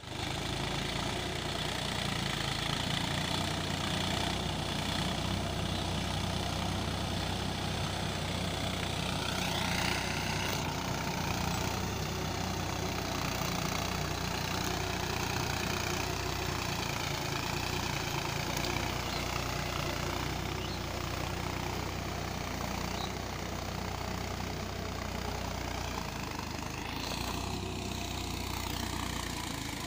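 Massey Ferguson tractor's diesel engine running steadily as it drives through a flooded, muddy paddy field.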